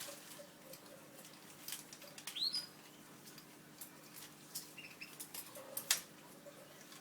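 Canaries moving about in their cage: scattered rustles, wing flutters and clicks, with a couple of short chirps, one a quick rising call about two and a half seconds in.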